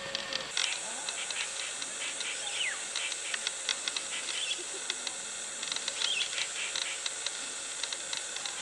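Steady high hiss with many scattered clicks and a few short falling chirps; the hiss gets stronger about half a second in.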